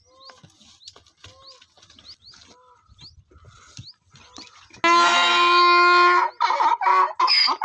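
Male donkey braying loudly about five seconds in: one long held note, then the rapid back-and-forth hee-haw of the bray.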